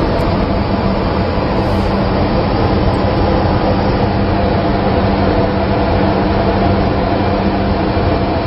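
Steady, loud machinery drone of a ship's engine room, a constant low hum under an even wash of noise.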